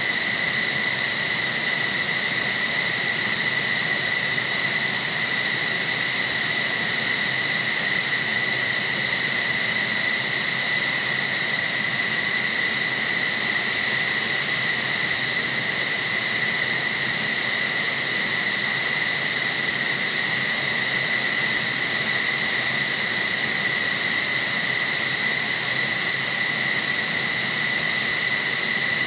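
F-15SG fighter's twin General Electric F110 jet engines running at idle: a steady high-pitched turbine whine over a loud rushing hiss, unchanging throughout.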